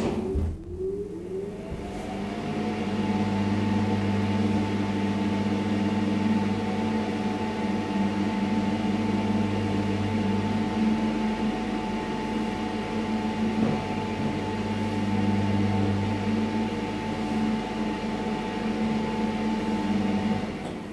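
Hissmontering hydraulic elevator's pump motor starting up with a rising whine, then running at a steady hum, heard from inside the car as it drives the car upward. The hum stops near the end.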